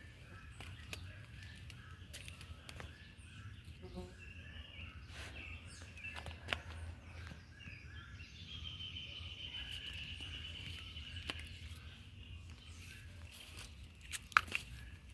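Birds chirping outdoors over a low steady rumble of background noise, with one longer trilling call about two-thirds of the way through. A few sharp clicks, the loudest near the end.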